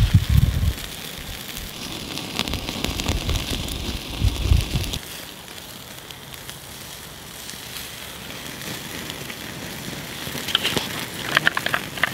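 Beef burgers and bacon rashers sizzling and crackling on a wire grill over the hot coals of a Honey twig stove, with fine crackles throughout and a burst of louder crackling near the end. A low rumble runs through the first five seconds.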